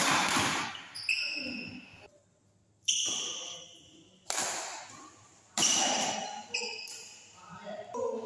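Badminton rally: rackets striking the shuttlecock with sharp cracks that ring out in the hall, four loud hits about a second and a half apart, with short high squeaks of shoes on the court between them.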